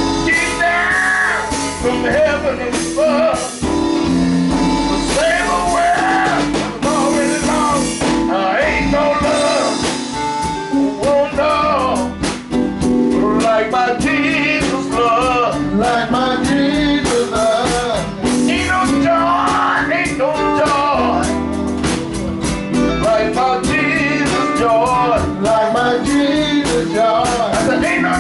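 Gospel band rehearsing live: voices singing over electric guitar, bass guitar, drums and keyboard, with a steady beat.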